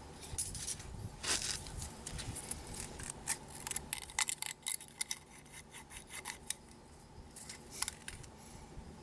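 Small metal hand tools clicking and scraping against engine parts, in irregular short clicks and rubs rather than a steady rhythm, during hands-on tappet (valve clearance) work on a Honda Super Cub engine that is not running.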